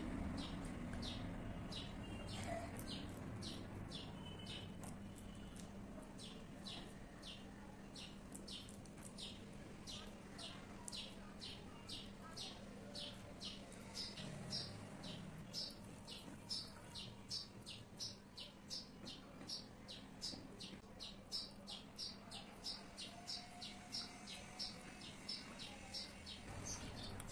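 A bird chirping over and over, short high chirps about two a second, with a faint steady hum underneath.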